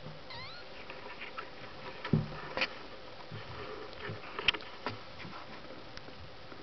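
Newborn kittens in a huddle: one brief, high rising squeak near the start, then scattered soft clicks and knocks, the loudest about two seconds in.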